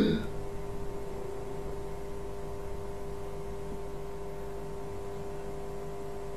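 A steady hum: one held tone with a few fainter higher tones above it, over a light hiss, unchanging throughout.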